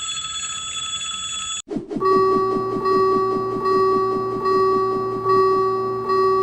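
Cartoon railroad crossing warning signal: a steady electronic tone, then after a short break a louder rapid ringing alarm that swells slightly faster than once a second.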